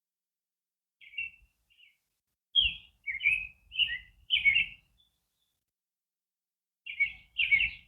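A songbird chirping: a few short notes, then a quick run of about five chirps, a pause of about two seconds, and more chirps starting near the end.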